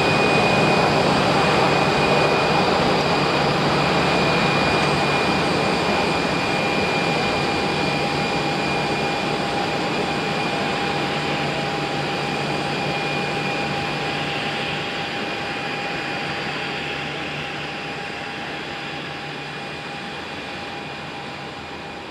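Boeing 787's jet engines idling as the airliner taxis: a steady rush with a high whine and a lower hum held level, slowly fading away.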